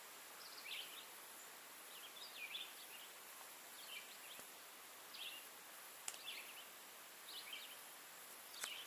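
A bird singing faintly: short, high chirping phrases repeated every second or so over a steady hiss, with a couple of light clicks.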